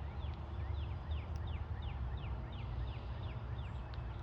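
A dog training collar's remote tone beeping as a recall signal, a quick run of short falling chirps about three a second, over a steady low rumble.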